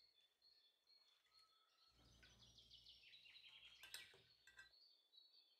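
Faint birdsong: small birds chirping in quick trills with a few falling notes. About four seconds in comes one light click, a metal fork touching a ceramic plate.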